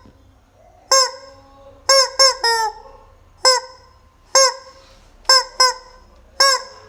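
Rubber chicken squeeze toy squawking: about nine short honking squeals, irregularly spaced, with a quick run of three about two seconds in and a pair a little after five seconds.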